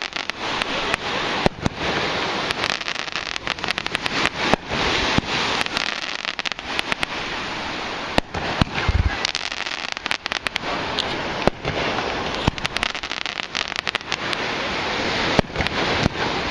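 Fireworks going off: many sharp bangs and cracks at irregular intervals, some in quick clusters, over a continuous hiss.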